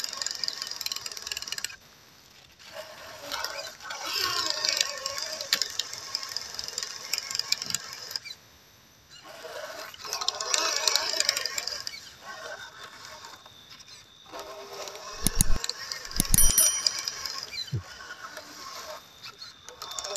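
MN99S Land Rover Defender-style RC crawler climbing a rock step: its small electric motor and gearbox whir in spurts, with short pauses when the throttle is let off. Two loud sharp knocks come about three-quarters of the way through.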